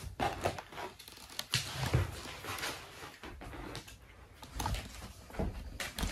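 Irregular handling noises of plastic toy dinosaurs and a tablet in a chunky case being moved and picked up: scattered knocks, clacks and rustles.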